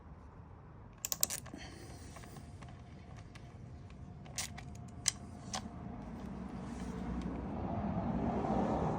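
Metal tool clicks and clinks from hand work on the motorcycle: a quick cluster of sharp clicks about a second in, then three single clicks about half a second apart. Near the end a louder, duller noise swells up.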